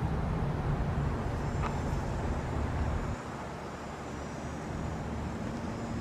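Federal Signal Thunderbolt 1003 outdoor warning siren winding down at the end of its test: a low rumble that drops suddenly in level about three seconds in.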